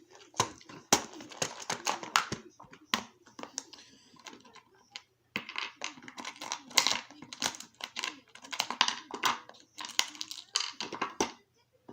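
Small metal parts of a challenge lock and the tools working on it clicking, tapping and scraping in quick irregular bursts as the lock is handled and taken apart, with a short pause partway through.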